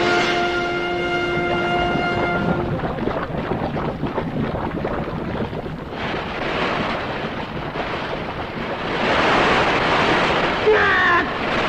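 A held orchestral brass chord dies away in the first couple of seconds, giving way to a rushing wind sound effect for a dust storm. The wind swells louder near the end, where a short sliding cry cuts through it.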